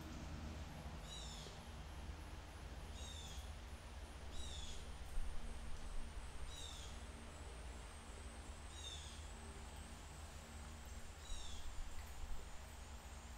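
A bird chirping: a short, high call that falls in pitch, repeated six times at uneven intervals of one and a half to two and a half seconds, over a low steady hum.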